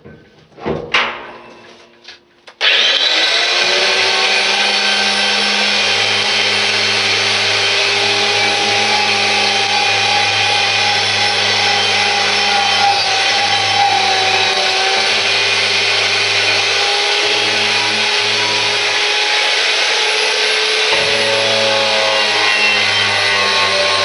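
A few handling knocks, then about two and a half seconds in an electric power tool starts and runs steadily under load, grinding the old paint off a steel pulley bracket: a low motor hum under a loud abrasive hiss.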